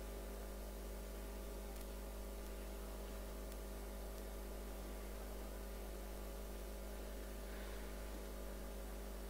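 Steady electrical mains hum with faint hiss, unchanging throughout.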